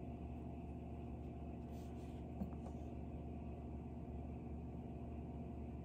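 Quiet room tone with a steady low hum and one tiny faint click about two and a half seconds in.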